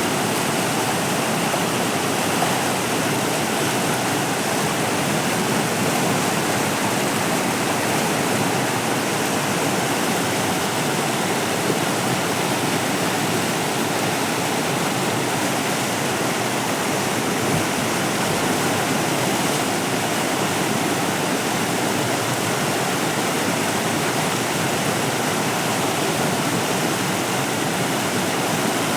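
Steady, unchanging rushing noise, like a waterfall, spread evenly from low to very high pitches with no events in it.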